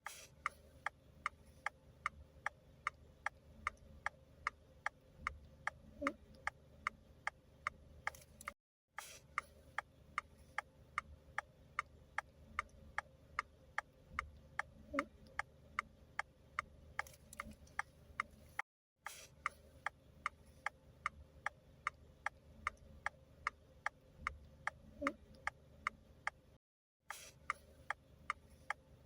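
Steady mechanical ticking, about three sharp ticks a second, breaking off briefly three times.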